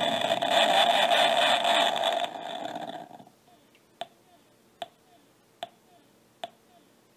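Circuit-bent sound-effects gravestone toy's sound chip putting out a loud, buzzy, distorted noise for about three seconds that then fades away. It is followed by a steady run of short electronic blips, a little more than one a second.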